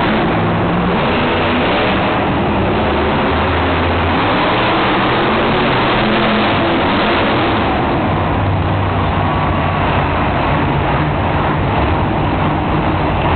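Monster truck engines running loud and revving hard, their pitch stepping up and down with the throttle.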